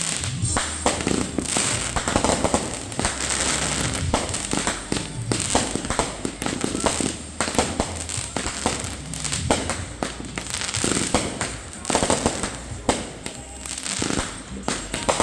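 Fireworks display going off: a continuous, rapid string of bangs and crackles with no pause between them.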